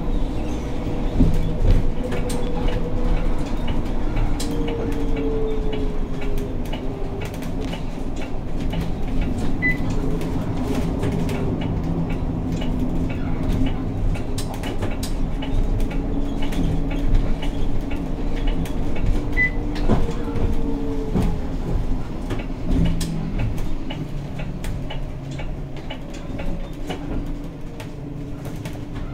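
Zhongtong LCK6113SHEVG hybrid bus heard from inside while underway: a steady drivetrain hum with a whine that glides down and up as the speed changes, and frequent rattles and knocks from the body and fittings. Two brief high beeps come about ten seconds apart.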